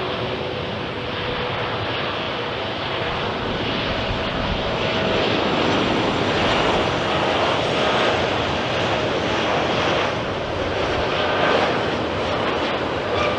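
Jet engines of a Boeing 737-800 airliner, its CFM56 turbofans, running as the plane comes in to land: a steady, loud rush of jet noise that swells slightly about halfway through.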